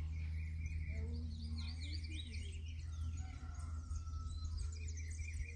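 Songbirds chirping and calling, many short chirps sweeping up and down, over a steady low rumble.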